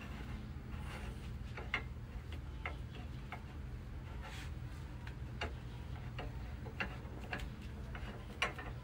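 Scattered light clicks and taps, irregular and unevenly spaced, from a kitten playing with a fabric strap on a tile floor, over a low steady background hum.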